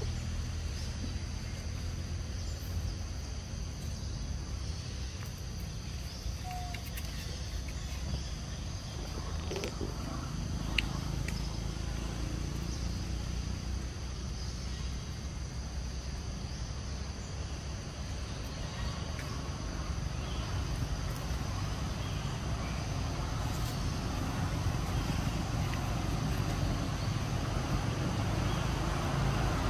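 Outdoor background noise: a steady low rumble with a faint, steady high insect drone. One sharp click sounds near the middle.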